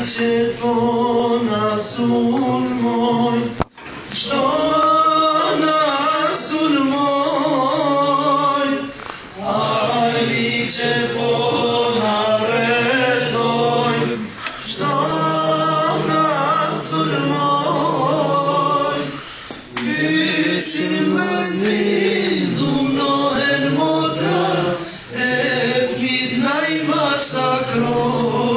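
Voices singing, mostly male, as a group, in sung phrases of several seconds each with short breaks between them.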